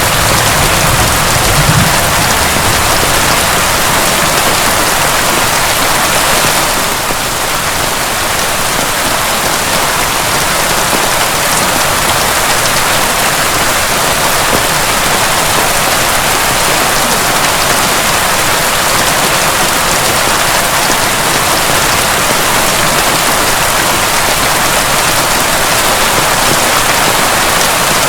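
Heavy rain pouring steadily, a dense even hiss, with a low rumble of thunder dying away in the first two seconds.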